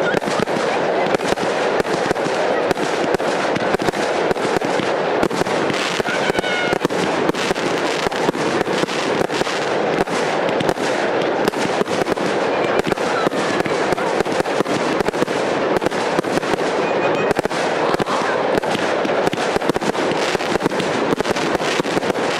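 Multi-shot firework cakes firing in a continuous barrage: rapid launch thumps and shell bursts, many each second, with no pause.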